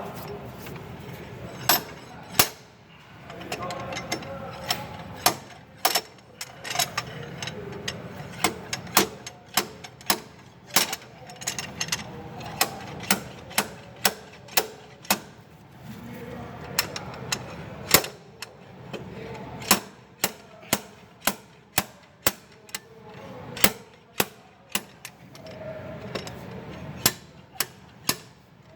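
Slide hammer being worked over and over, its sliding weight clacking metal on metal against the stop about one to two times a second with short pauses, jerking a hook set behind a broken EGR valve piece. The piece is held fast in its bore by corrosion.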